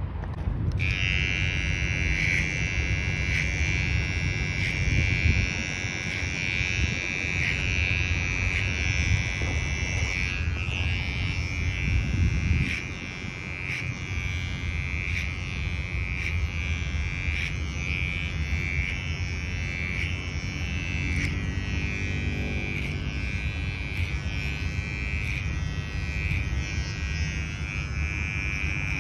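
Cordless electric hair clipper switched on about a second in, then running with a steady high whine while it cuts hair over a comb.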